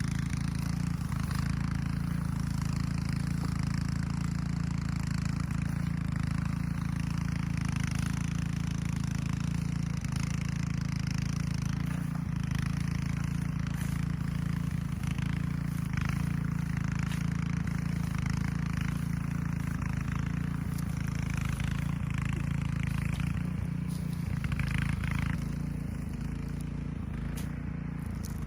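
Rototiller's gas engine running steadily under load while tilling, easing off slightly about 25 seconds in.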